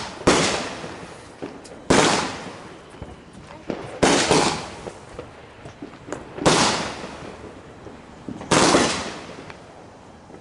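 Fireworks going off: five loud bangs about two seconds apart, each dying away over about a second.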